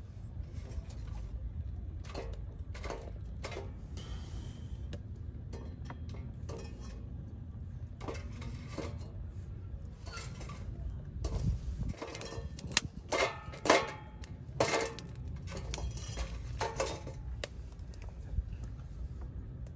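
Dishes and utensils clinking and knocking irregularly, busiest and loudest in the second half, over a steady low rumble.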